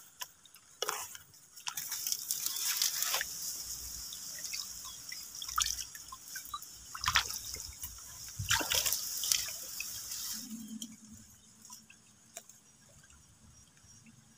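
Water splashing and dripping as a person wades into the shallow edge of a river: irregular splashes for about ten seconds, then much quieter.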